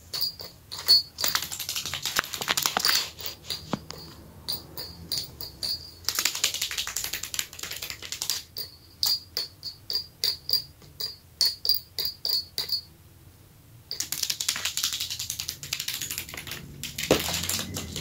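A budgerigar pecking at two small bells hung on a bottle cap: quick taps, many with a short tinkling ring, broken by stretches of its feet scratching and rustling across paper maps, with a brief lull just after the middle.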